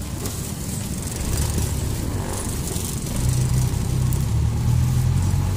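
A passenger vehicle's engine and road noise heard from inside the vehicle: a steady low rumble that grows louder about three seconds in.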